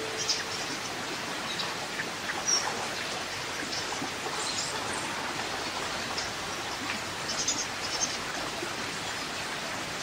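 Stream water rushing steadily over rocks, with short high bird chirps now and then.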